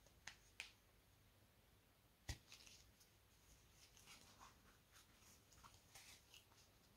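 Near silence, with faint clicks and soft rustles of a large plastic crochet hook pulling thick cotton cord through stitches; one sharper click about two seconds in.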